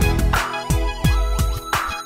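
Backing music with a heavy beat: deep bass drum hits that drop in pitch, and a snare hit about every second and a half over sustained synth tones.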